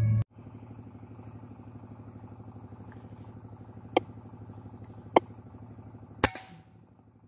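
A sharp, short crack about six seconds in from a suppressed PCP air rifle firing, preceded by two smaller sharp clicks. A steady low pulsing hum runs underneath.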